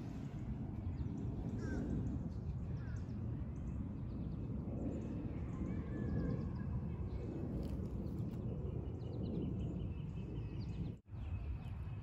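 Wind rumbling on the microphone in a garden, with faint bird chirps in the background. The sound cuts out for an instant about a second before the end.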